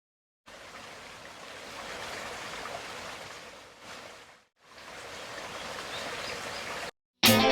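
Steady outdoor rushing noise, like water or rain, with no distinct events. It fades out about four seconds in, returns a moment later, and stops abruptly just before music begins near the end.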